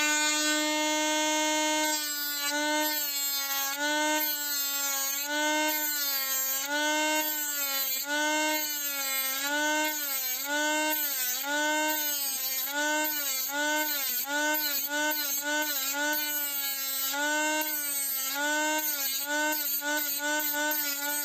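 Small high-speed rotary tool grinding away a little material. The motor runs steadily at a high whine for about two seconds, then its pitch dips and recovers about once a second as it is pressed into the work.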